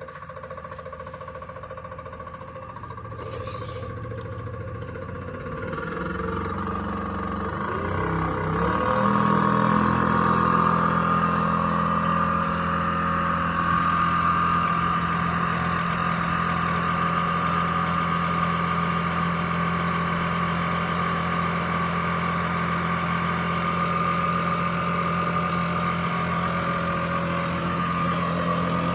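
Heinrichglueck H-36 welding positioner's drive motor and gearbox running as its speed is turned up: the hum grows louder and shifts in pitch over the first nine seconds or so, then runs steadily at the higher speed.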